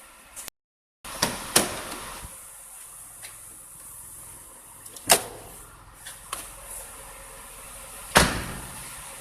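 A Tata Tiago's door and bonnet being opened: several sharp clunks from the car's body, the loudest about five and eight seconds in.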